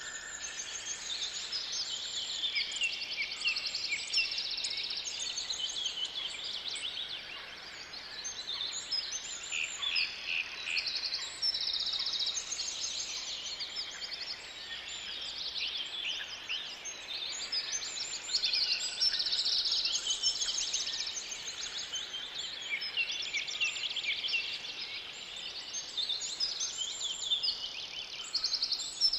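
Several songbirds singing at once in a forest, overlapping fast trills and repeated chirps.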